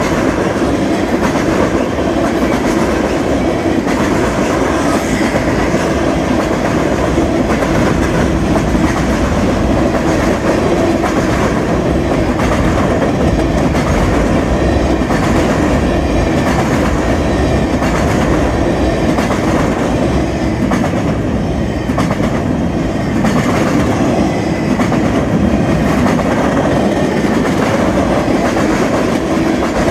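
A Union Pacific train rolling past, its wheels running over the rail joints in a steady repeating rhythm.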